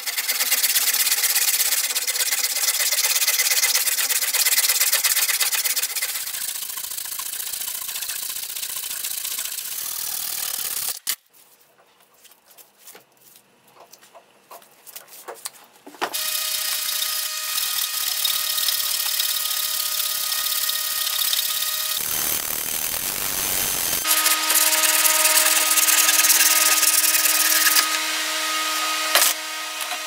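Hand saws cutting through a wooden log with steady back-and-forth strokes. About 11 seconds in, the sawing stops for a few seconds of quiet knocks while the wood is handled. When it starts again, a few steady ringing tones sound over the noise of the cut.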